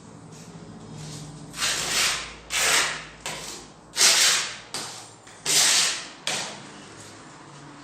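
Steel putty knife scraping across plaster on a plasterboard window reveal: a series of rasping strokes, each about half a second long.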